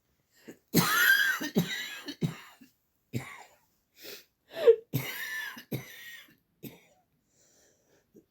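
A person coughing repeatedly: a string of short coughs, loudest at about a second in and again about five seconds in, dying away after about seven seconds.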